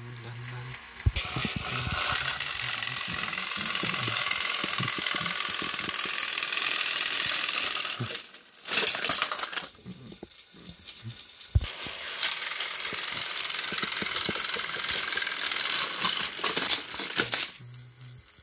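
Plastic toy trains and track pieces rustling and clattering as they are handled, in two long stretches with a quiet gap in the middle.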